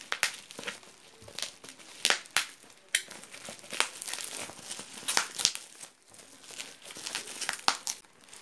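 Black plastic bubble-wrap mailer crinkling and crackling in irregular bursts as it is cut with scissors and then pulled open by hand.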